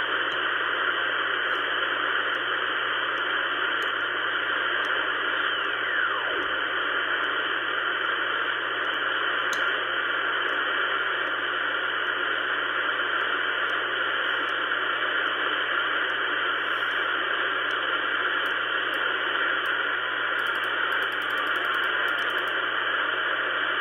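Ten-Tec Pegasus shortwave receiver's audio on the quiet 15-metre band in USB while being tuned upward: steady band-noise hiss, with a faint whistle falling in pitch about five to six seconds in as a signal is tuned past.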